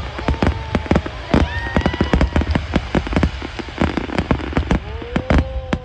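Crowd voices chattering over a dense, continuous run of sharp crackling clicks.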